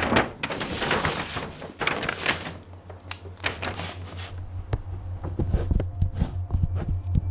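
A paper map rustles and crackles as it is handled, then a string of light taps and clicks follows, over a low steady hum.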